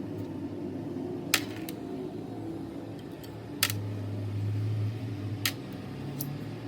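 A steady low mechanical hum with three sharp clicks, about two seconds apart.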